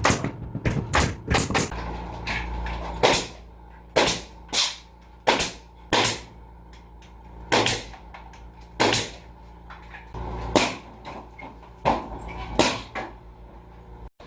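Pneumatic nail gun firing nails in a string of sharp shots at irregular intervals, about one a second.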